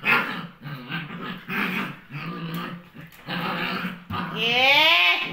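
Two dogs growling at each other in a string of short rough bursts, then one long rising whine about four seconds in.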